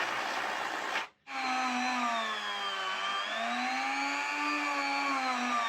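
Aerosol spray hissing for about a second and cutting off. Then a handheld rotary tool whines steadily as it cleans model locomotive wheels, its pitch sagging and recovering as it is pressed against the wheels.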